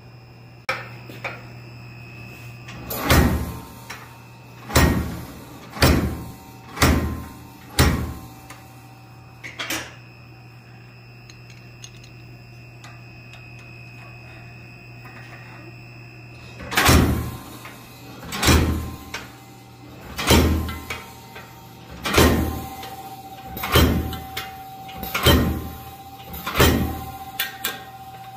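Hammer blows driving a fuller into hot steel, spaced about one and a half to two seconds apart: five blows, a lighter tap, a pause of several seconds, then a run of about eight more, over a steady low hum.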